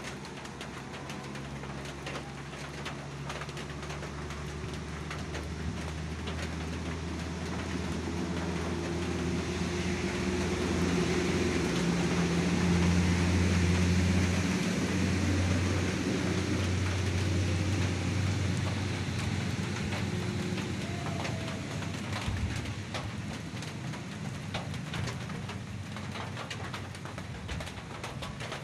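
A motor engine passing by: a low hum that swells to its loudest about halfway through and then fades away. Scattered rustles and clicks sound over it.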